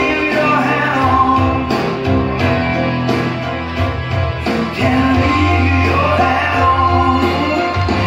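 Rock song with a singing voice and guitar over a steady beat.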